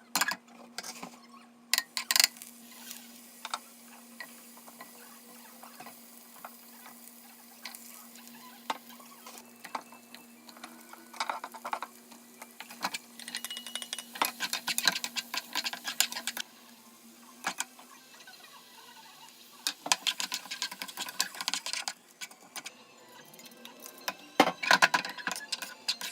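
Kitchen cooking sounds: utensils clicking and scraping against cookware in clusters of quick knocks, over a steady low hum that stops about two-thirds of the way through.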